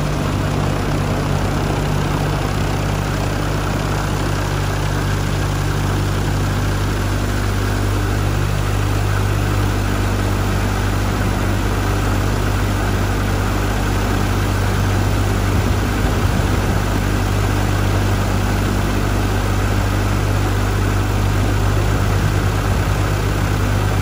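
Viking 130 aircraft engine idling steadily with its propeller turning, run up after a fresh start to get the liquid cooling system going.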